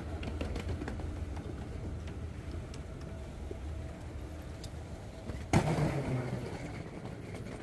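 Airport terminal background: a steady low rumble with faint scattered clicks, and one loud thump about five and a half seconds in that echoes briefly through the hall.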